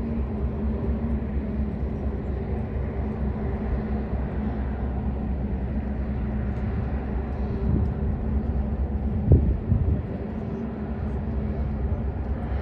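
Steady low drone of a ro-ro ferry's engines as the ship moves slowly past, with a constant hum. About nine seconds in there are a few brief low thumps.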